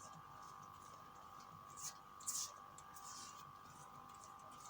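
A few soft swishes of a paintbrush spreading PVA wood glue over paper, over a faint steady hum.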